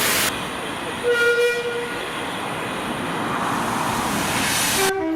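A train horn sounds one short blast about a second in, over the steady noise of a moving train. Just before the end, after an abrupt change in the sound, a shorter, lower horn note begins.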